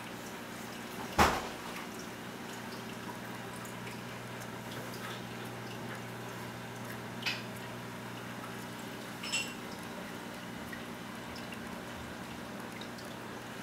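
Saltwater aquarium water dripping: a few single drops plinking, the sharpest and loudest about a second in, over a steady low hum.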